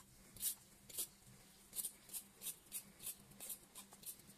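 Vegetable peeler scraping strips off a raw carrot in short, faint strokes: two separate strokes early, then a steady run of about three strokes a second.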